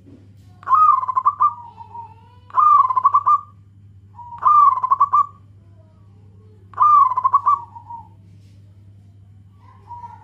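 Zebra dove (perkutut) cooing: four loud phrases about two seconds apart, each a quick stuttering, rolling trill, then a fainter short phrase near the end. A steady low hum runs underneath.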